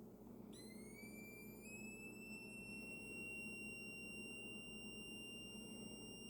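Transistor oscillator of an electronic-kit water alarm sounding through its small speaker: a quiet, high electronic tone starts about half a second in, slides upward for a second or so, then holds steady. The tone means the electrode is in contact with the salt water, and the water's conductivity sets its pitch.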